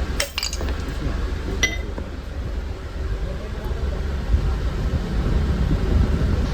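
Metal clinking: a quick cluster of ringing metallic clinks just after the start and one more about a second and a half in, over a steady low rumble.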